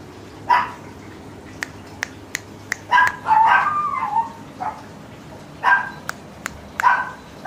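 Doberman puppy giving short, high yelping barks, four bursts in all, the one in the middle drawn out into a longer yelp that wavers in pitch.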